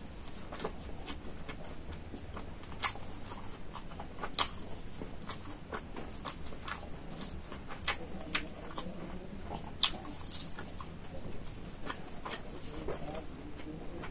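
Close-miked chewing and lip smacking from someone eating rice and chicken with his fingers, with short sharp clicks scattered through, two louder ones about four and ten seconds in.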